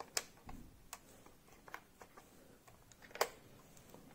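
Faint, irregular plastic clicks as the rope winch on a Siku toy police boat is turned by hand, with a louder click about three seconds in.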